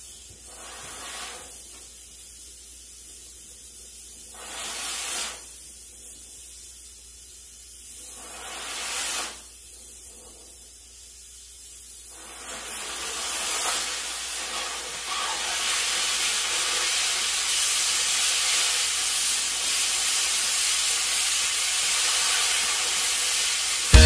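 Oxy-fuel cutting torch hissing against 1/8-inch steel plate, with short louder bursts of hiss about 5 and 9 seconds in. From about halfway the hiss builds and holds loud as the cut gets going and throws sparks.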